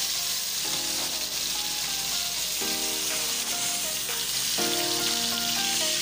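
Marinated chicken tikka frying in a little hot oil in a nonstick pan on high flame, a steady hard sizzle. Short held chords of background music come in three times over it.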